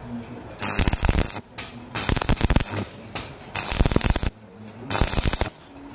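E6013 stick electrode arc crackling at 70 amps, in bursts of about half a second to a second with sharp breaks between, as the arc goes out and restrikes several times.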